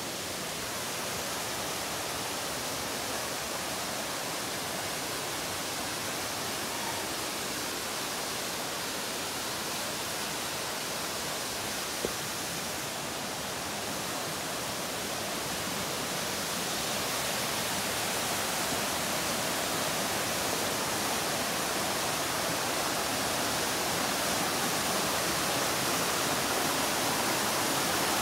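Steady rushing of a mountain brook and its waterfall cascading over rock, slowly growing louder in the second half.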